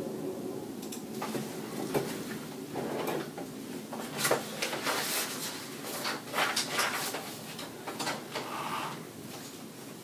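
An irregular run of clicks, knocks and rustles, some louder than others, that stops about nine seconds in.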